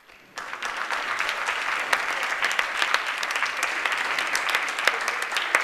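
Audience applauding: many hands clapping in a dense, steady patter that starts about half a second in.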